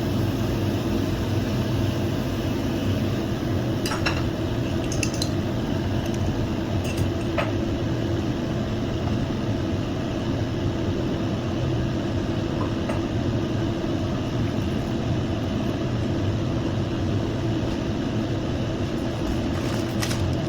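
Steady stove-side hum with a few sharp clinks of a utensil against a pan, about four seconds in, around five and seven seconds, and again near the end.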